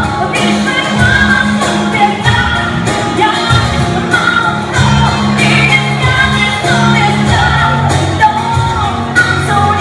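Live acoustic pop song: a woman singing lead over two strummed acoustic guitars and a cajón beating a steady rhythm, picked up from among the audience in a large hall.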